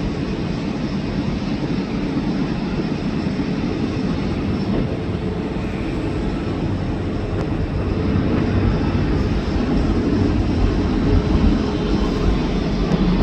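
Jet airliner engines rumbling, a steady low noise that grows a little louder in the second half.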